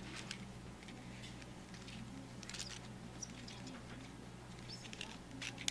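Faint scattered clicks and scratches of a screw being worked through a Velcro strap and a 3D-printed plastic hand part, over a low steady hum.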